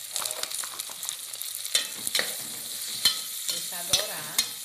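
Sliced calabresa sausage and chopped onion sizzling in a hot pot as a metal spoon stirs them, knocking and scraping against the pot several times over a steady frying hiss.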